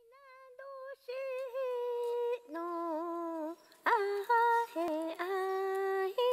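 A woman's voice singing unaccompanied, a slow melody of long held notes with small scoops between them, fading in from silence.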